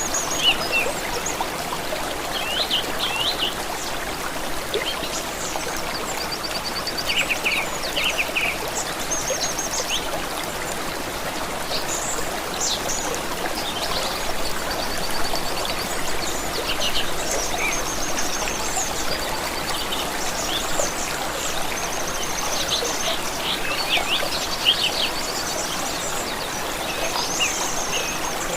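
Water flowing steadily in a stream, with songbirds chirping and trilling throughout in short, repeated phrases.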